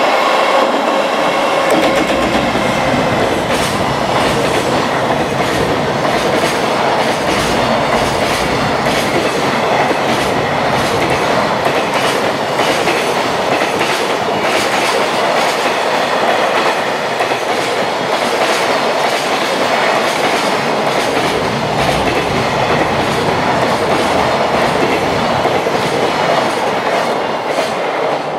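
Long container freight train hauled by a JR Freight EF210 electric locomotive passing through, with a steady whine in the first couple of seconds. Then the wagons go by with a continuous rumble and rapid clickety-clack of wheels over rail joints.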